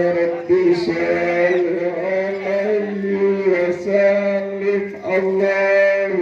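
Male voices chanting an Arabic Islamic prayer (doa or shalawat) in long, held notes.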